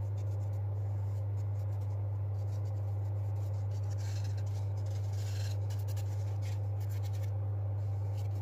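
Bristle paintbrush scratching and dabbing across plywood as wood dye is brushed onto the edges, over a steady low hum.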